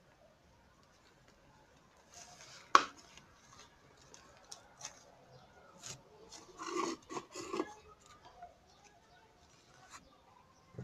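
Hands working a soft homemade slime: scattered sticky squishing and rubbing noises with one sharp pop about three seconds in and a louder run of squelches near the middle.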